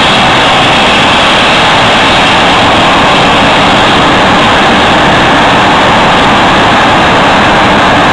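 Jet engines of two jet dragsters running steadily at the starting line: a very loud, even rushing noise that does not change in pitch.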